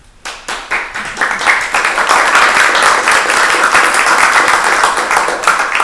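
Audience applauding: a few scattered claps build within about a second into full applause, which begins to die away near the end.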